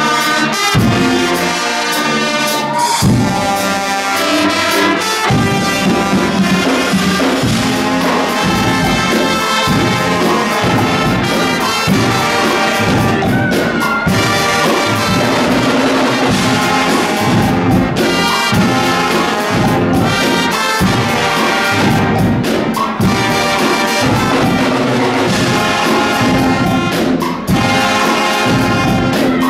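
Swiss Guggenmusik carnival brass band playing loud, brassy music: trumpets, trombones and sousaphone together over a steady beat.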